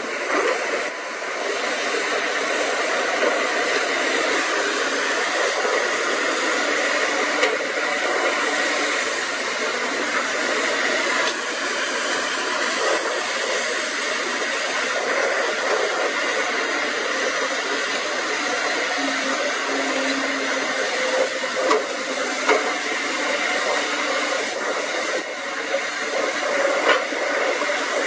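Several Caterpillar 320-series hydraulic excavators running steadily as they dig, their diesel engines and hydraulics giving a continuous mechanical noise, with a few short knocks near the end.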